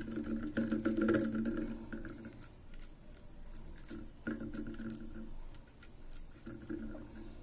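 Fingers patting sticky rice-flour dough flat on an oiled tawa: many short, soft wet taps. A low steady hum comes and goes behind them.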